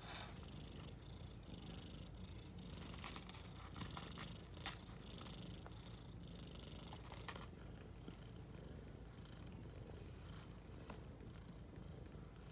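Steady low purring from a mother cat and her nursing kittens, with a few faint clicks and one sharp click about four and a half seconds in.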